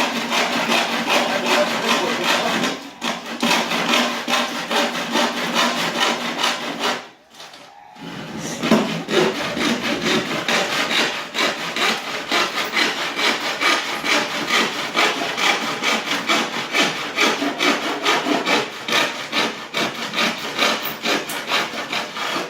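Handsaw cutting wood by hand in quick, steady back-and-forth strokes. The sawing pauses for about a second around seven seconds in, then carries on and stops at the end.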